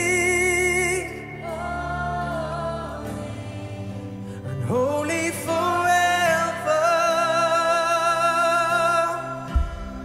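Live worship song: a male lead singer holds long notes with vibrato over strummed acoustic guitar and electric guitar, with short breaths between phrases.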